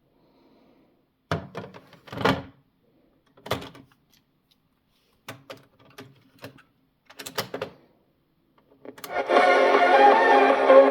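A cassette recorder's mechanism is handled, giving a series of clicks and clunks. Then, about nine seconds in, music starts playing from it.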